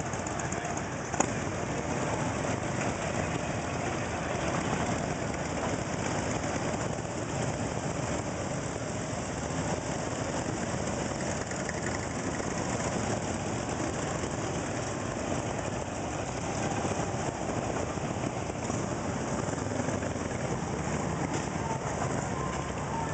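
Several motorcycle engines running as a group of riders pulls out and rides off, with a brief sharp click about a second in.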